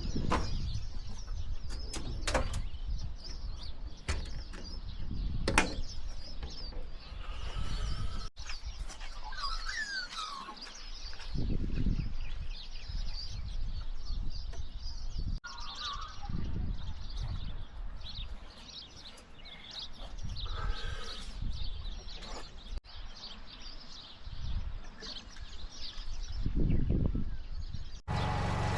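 Birds chirping now and then over a steady low outdoor rumble, with a few sharp knocks and clicks of things being handled.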